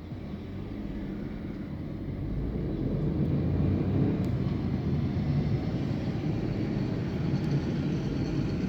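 Bulldozer's diesel engine running with a steady low rumble, growing somewhat louder over the first few seconds.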